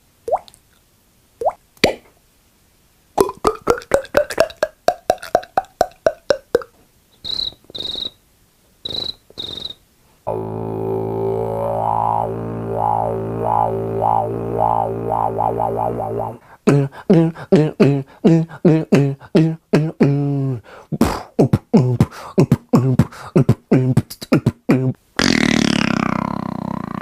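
A man making vocal sound effects with his mouth, beatbox-style, one after another: a few water-drop pops, a run of rapid clicks, four short high whistles, then a long buzzing drone that pulses faster and faster. It goes on to quick rhythmic pulses and ends with a hissing, whooshing noise.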